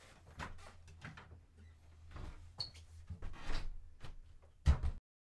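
Footsteps and the handling of a door being opened, with scattered knocks and rustles, ending in one loud thud as the door shuts near the end. A faint steady low hum lies underneath.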